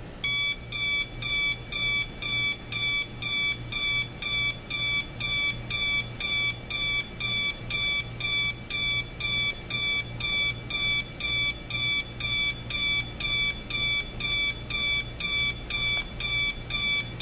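Equity 30017 electric LED alarm clock's alarm going off: a high electronic beep repeating steadily about twice a second.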